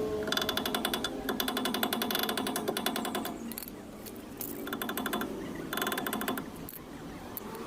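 Ratchet wrench clicking rapidly on a rear wheel hub nut, in four runs with short pauses between.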